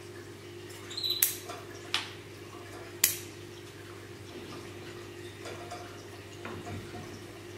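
Three sharp clicks about a second apart, the last the loudest, as a pair of bonsai scissors is handled while pruning, over a faint steady hum.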